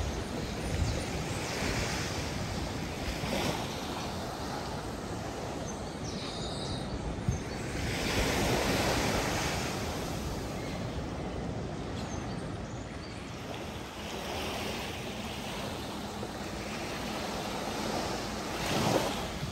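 Sea waves breaking and washing up the beach, the surf swelling every few seconds, the biggest wash about eight to ten seconds in.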